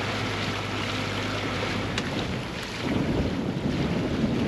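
Wind buffeting the microphone on a sailing yacht under way, with the rush of water alongside. A steady low drone, the yacht's inboard engine, runs for the first couple of seconds, then gusty rumbling wind takes over.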